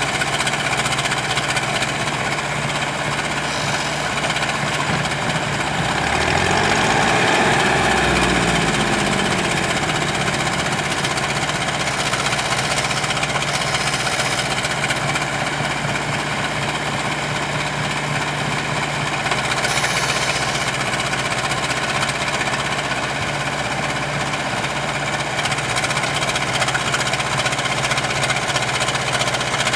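JCB backhoe loader's diesel engine running steadily, revving up and dropping back once several seconds in while its backhoe arm works.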